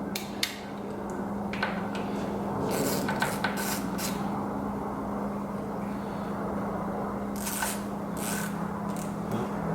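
Hand-tool work on a transmission's band adjuster: a few short scraping, ratcheting bursts, in two clusters about three seconds and seven to eight seconds in, over a steady low hum.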